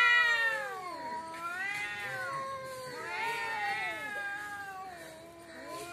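Cats caterwauling in a territorial standoff: long, wavering yowls that rise and fall, one after another and sometimes overlapping. The loudest is at the start, and a lower drawn-out wail carries on near the end.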